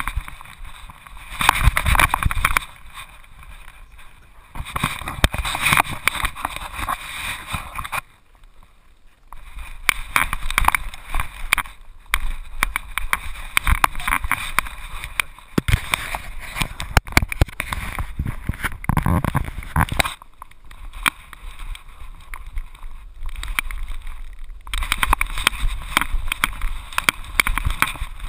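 Muffled rustling, bumping and crunching from a GoPro mounted on a dog's back as the dog moves through snow, heard through the camera housing. It comes in bouts with many sharp knocks and eases off twice for a few seconds.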